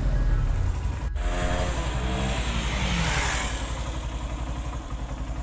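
Motorcycle engine running with an even, low pulsing beat.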